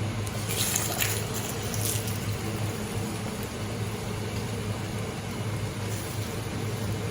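Liquid running or pouring in short spells, about the first two seconds and again briefly near the end, over a steady low hum.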